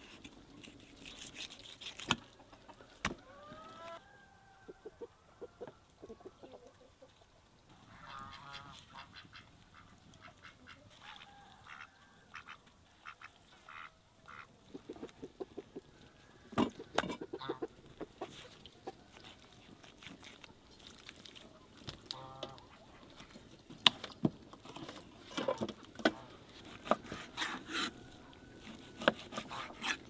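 A large kitchen knife cutting raw meat on a wooden board, with sharp knocks of the blade on the board that come thickest near the middle and toward the end. In between, poultry call a few times, short honking calls about a third and three quarters of the way through.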